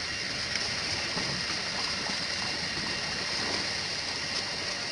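Shallow water sloshing and trickling around a fishing net being hauled in at the bank, over a steady high hiss.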